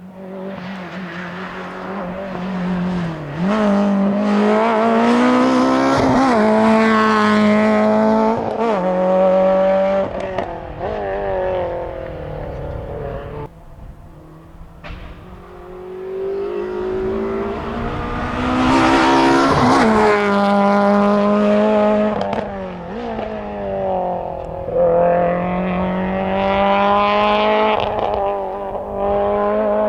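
Citroën Saxo VTS rally car's four-cylinder petrol engine revving hard at full throttle. Its pitch climbs again and again through the gear changes. It is loudest as the car passes close, about two-thirds of the way in, and it fades briefly before the car accelerates again.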